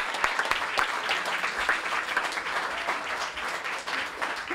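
A small audience applauding, with the band members clapping along; the dense hand claps ease off slightly near the end.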